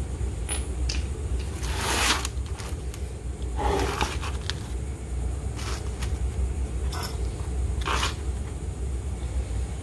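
Flattened cardboard sheets sliding and scraping on a concrete floor as they are laid out, in a handful of short strokes, the loudest about two and four seconds in, over a steady low hum.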